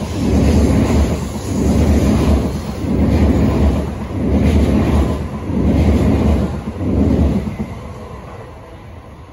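N700A Shinkansen train running past: a heavy rumble of wheels on rail that swells about once every second and a half as each car goes by. It fades away near the end as the last car passes.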